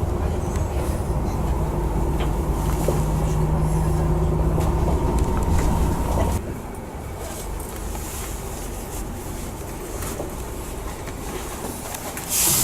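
Bus running along the road: engine and road rumble with a steady hum. About halfway through it drops to a quieter rumble, and there is a short hiss near the end.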